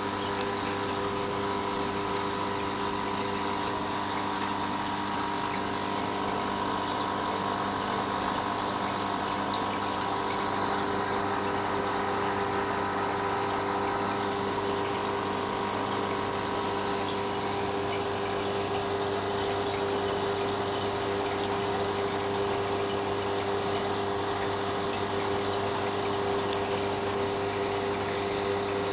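Aquarium air pump humming steadily, with the hiss of bubbles rising from an air stone in the tank.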